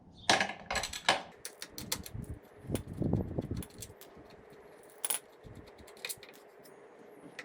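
Irregular metallic clicks and clinks of hand tools working on a motorcycle brake caliper as it is unbolted, with a brief duller scraping noise about three seconds in and a sharper click near five seconds.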